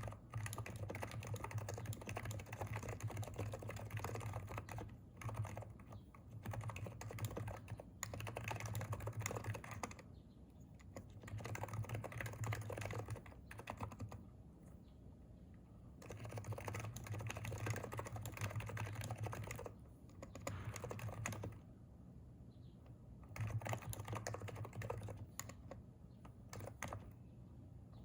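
Fast typing on a Hansung capacitive keyboard, with the keystrokes ringing sharply. It comes in runs of rapid keystrokes broken by short pauses, the longest a little past a third of the way in and about halfway through.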